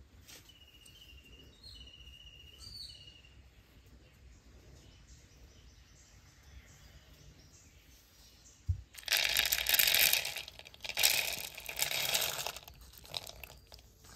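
Dry crunching and rattling from ingredients being handled, in two loud spells in the second half after a low thump. A few faint bird chirps come near the start.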